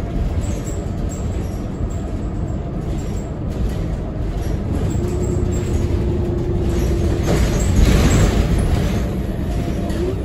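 Cabin sound of a 2020 New Flyer XD40 diesel transit bus under way: a steady low engine and road rumble. A steady whine holds from about five to seven seconds in, and a louder surge of hissing noise comes about eight seconds in.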